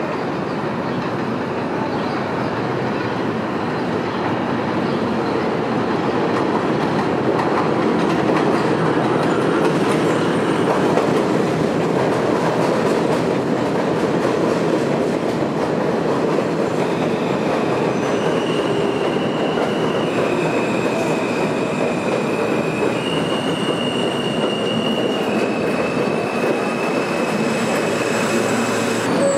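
R160 subway train running along the elevated platform with a steady rumble and clatter of wheels on rail. From a little past halfway to the end, high wheel squeal joins in, holding a few steady pitches that step up and down.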